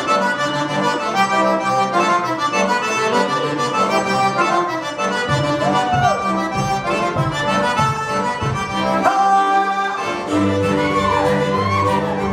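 A Cajun band playing a tune led by a Cajun accordion, with other instruments alongside it; the low bass end fills out about ten seconds in.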